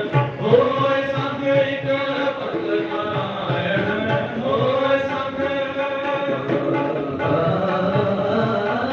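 Sikh shabad kirtan: men singing Gurbani in long held, gliding lines over a harmonium accompaniment.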